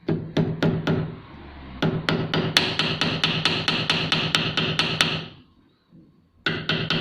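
Small hammer tapping rapidly on a metal part taken from a Singer sewing machine, a few slower strikes and then about five a second, with a short pause near the end before the tapping resumes. The tapping flattens a nick in the part that was making the machine break its thread.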